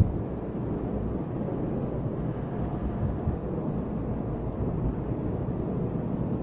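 Steady low rumble of electric fans running in a large hall, with air moving over the microphone; no speech.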